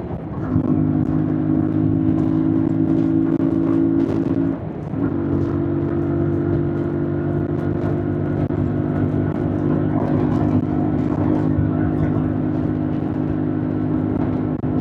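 2025 Yamaha MT-07's parallel-twin engine running at steady revs while riding. It dips briefly in loudness just after the start and again about four and a half seconds in, then carries on at a slightly changed pitch.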